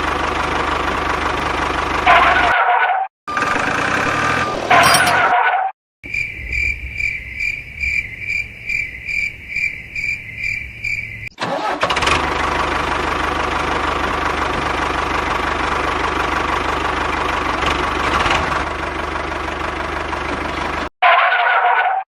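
Mini tractor engine running steadily, heard in several short cut clips. A stretch of evenly spaced high beeping, about two beeps a second, runs through the middle.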